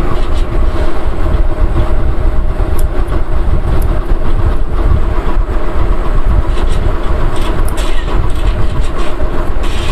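Loud, steady low mechanical rumble with the character of traffic or machinery, and a few faint scissor snips over it.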